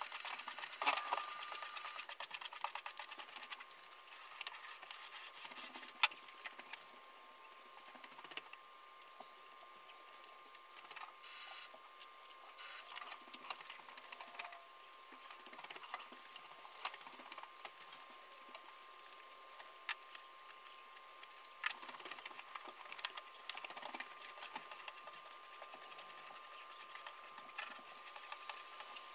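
Faint scattered scrapes, taps and clicks of hand work with epoxy tools on a wooden canoe hull. A faint steady high hum comes in about two seconds in.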